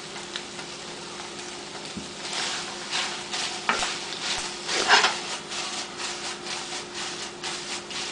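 A spatula stirring and scraping chicken through sauce in a sizzling frying pan, with a quiet sizzle at first and a run of scraping strokes from about two seconds in, the loudest about halfway through.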